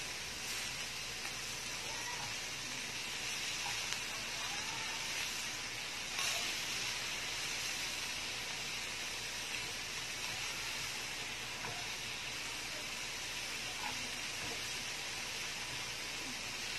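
Chicken pieces sizzling steadily on a round samgyeopsal grill pan, with a few light taps as chopsticks turn the pieces.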